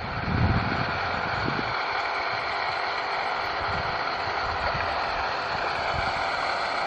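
Small boat engine running steadily, a loud even drone.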